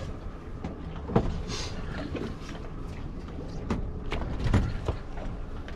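A steady low rumble of wind and water around a fishing boat at sea, with several sharp knocks and clunks, the loudest about a second in and again about four and a half seconds in.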